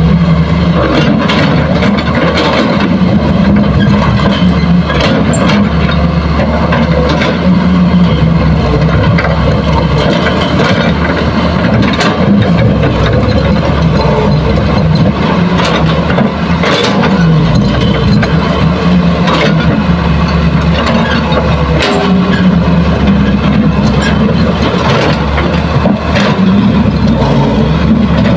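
Diesel engines of a Hitachi hydraulic excavator digging soil and a light dump truck moving into place beside it, running loud and steady, with a few sharp knocks scattered through.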